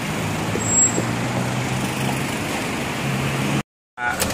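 Street traffic noise with a motor vehicle's engine giving a steady low hum. It cuts off suddenly near the end, and after a short gap a few sharp clicks follow.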